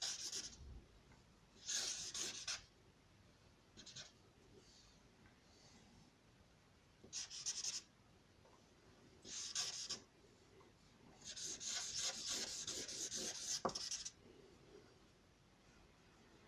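A drawing tool scratching across paper in separate sketching strokes, most under a second long, with one longer stroke of about three seconds past the middle.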